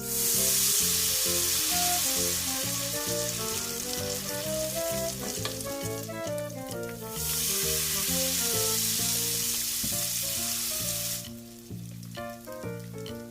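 Tempura frying in hot oil, a loud steady sizzle that dips briefly about halfway and stops about eleven seconds in. Background music plays throughout.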